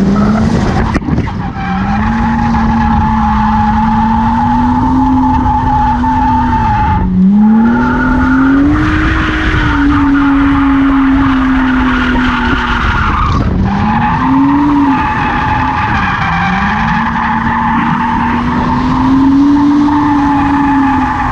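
Car being drifted: the engine is held high in the revs, its pitch rising and falling, dropping briefly twice as the throttle comes off, over a continuous tyre squeal.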